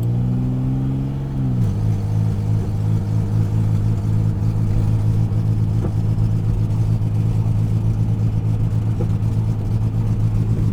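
1997 Dodge Avenger's 2.5-litre V6 pulling under hard throttle. Its note drops about a second and a half in as the transmission shifts, then holds a steady, fluttering drone as the engine bogs down and shudders around 2000 rpm, a fault the owner has not yet traced after replacing the plugs, wires, cap and rotor.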